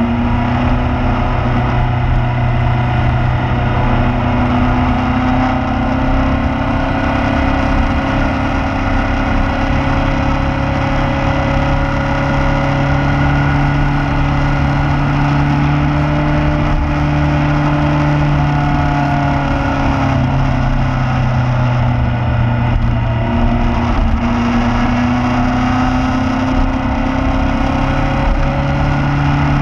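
Motorcycle engine running at steady road speed, its note sliding slowly up and down with the throttle, a few times stepping to a new pitch, over steady wind noise on the microphone.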